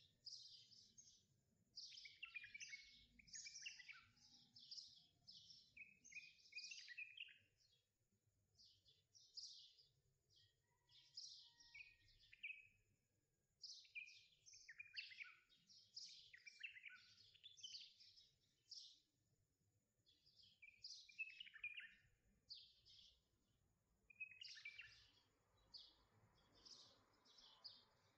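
Small songbirds chirping, faint: quick runs of short high notes, many falling in pitch, with brief pauses between runs.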